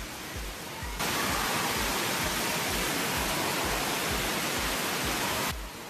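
Steady rushing and splashing of water from an indoor pool's fountains. It comes in suddenly about a second in and cuts off just before the end.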